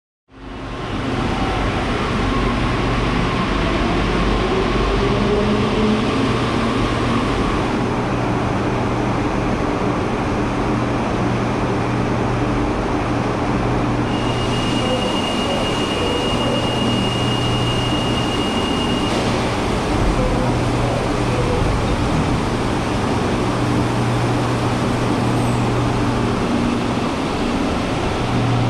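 Santiago Metro Line 1 rubber-tyred train running: a steady rush of noise over a low hum. A motor whine rises in pitch over the first several seconds, and a steady high tone sounds for about five seconds midway.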